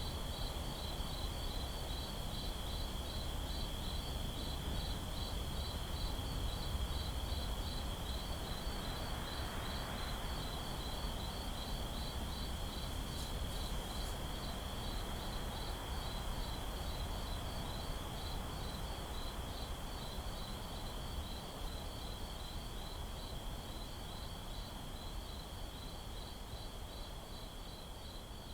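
Night ambience of crickets chirping: one steady high trill with a rapid pulsing chirp just above it, over a low rumble. It slowly fades out over the last several seconds.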